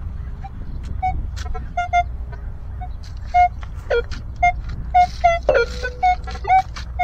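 Metal detector giving short, irregular beeps over a buried target, sounding more often and louder from about three seconds in, with a steady low rumble underneath.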